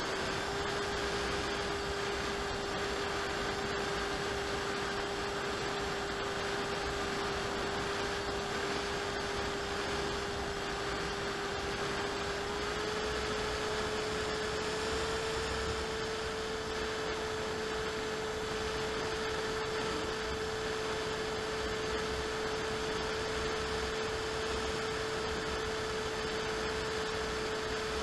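AXN ClouDs Fly FPV plane's electric motor and propeller, picked up by the camera on the airframe: a steady whine over a rush of wind. The pitch steps up slightly twice, around the middle of the stretch.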